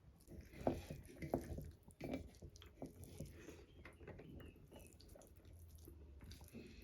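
Faint chewing and mouth sounds of someone eating, with irregular soft clicks and a few louder smacks.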